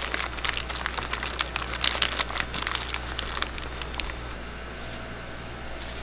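Plastic sausage packaging crinkling and crackling as it is peeled open and handled: many quick crackles that stop about three and a half seconds in, leaving a steady low hum.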